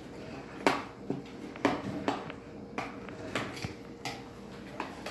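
A spoon stirring a thick casserole mixture in a mixing bowl, knocking and scraping against the bowl in irregular short clacks, roughly two a second.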